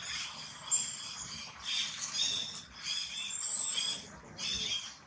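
Newborn macaque giving a rapid series of about five high-pitched squealing cries.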